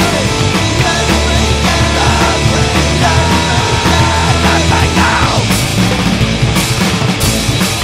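Loud rock music: a dense, fast punk-rock style song with a full band.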